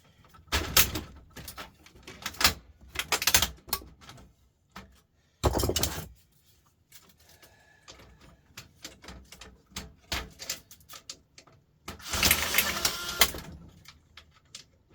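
Plastic and metal parts of a laser printer knocking and clattering as its back cover is worked loose by hand: a run of irregular sharp knocks, a heavier thud, and a longer rattling scrape near the end.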